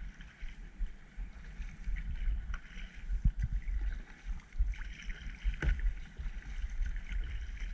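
Paddling a kayak: water splashing and lapping at the paddle and hull over a gusty low rumble on the microphone, with a few sharp clicks.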